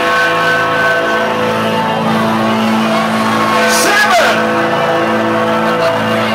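Music with sustained chords playing over a packed party crowd, with a whoop that swoops up and down about four seconds in.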